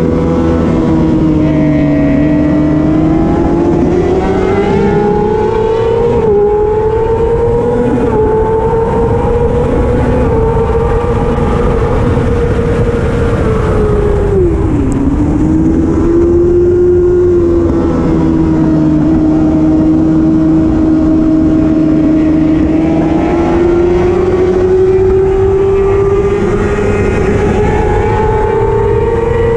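Racing motorcycle engine held at high revs on track, its pitch climbing and falling with throttle and gear changes. About halfway through it drops sharply, then climbs again.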